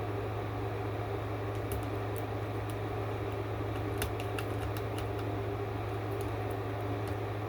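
A steady low mechanical hum runs throughout. Over it come scattered light clicks and crinkles from fingers picking at the plastic shrink wrap on a vinyl record, clustered about four to five seconds in.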